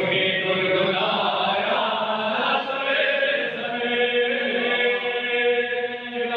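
A man chanting a devotional recitation into a microphone over a PA, unaccompanied, drawing out long held notes, most steadily in the second half.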